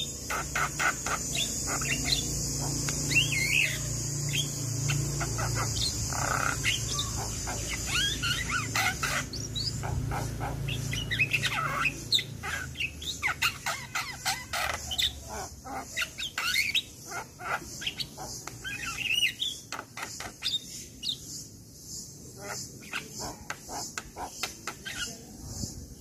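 Javan myna chattering: a rapid, varied string of squeaky whistles, chirps and clicks, thinning out in the last few seconds, over a steady high hiss.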